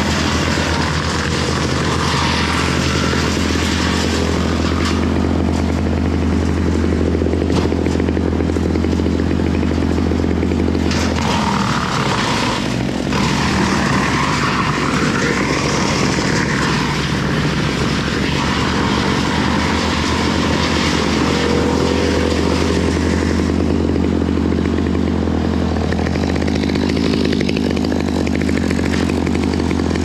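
An engine running steadily, with a brief change in its note about eleven seconds in.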